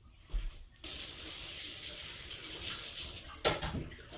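Kitchen tap running for about two and a half seconds, the water turned on and off suddenly, with a knock as it stops.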